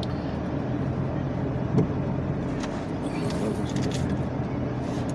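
Car engine running with a steady low hum, heard from inside the cabin, with one short rising sound about two seconds in.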